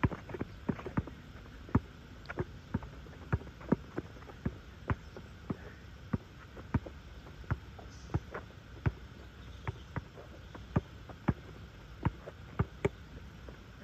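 Basketball being dribbled on asphalt: sharp bounces about twice a second, unevenly spaced.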